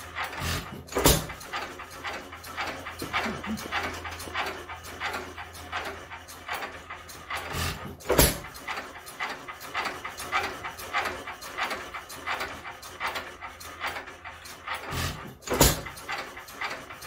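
Modified International hit-and-miss engine running, a rhythmic chuffing and clicking as the flywheels coast, broken by a sharp firing stroke three times, about seven seconds apart.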